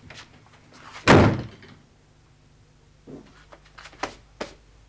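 A door slammed shut about a second in, followed by a few faint knocks.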